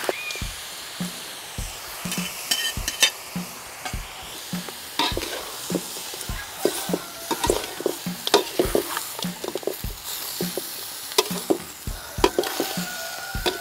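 Rabbit meat sizzling in oil in a large metal wok, with a metal spatula scraping and clanking against the pan in frequent irregular strokes as it is stirred.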